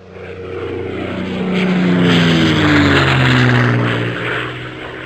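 Intro sound effect of a propeller airplane flying past: the engine drone swells, its pitch drops as it passes, then it fades away.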